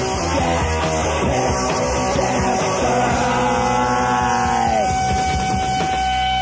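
Live punk rock band, with distorted electric guitar, bass and drums, playing the closing bars of a song. About four seconds in, the sound bends down and settles into one long held high note.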